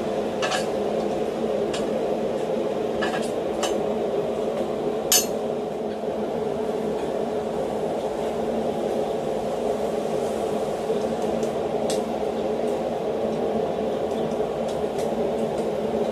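Steady drone of a running blacksmith's forge with a few light metal clinks of iron and tongs being handled, the sharpest about five seconds in.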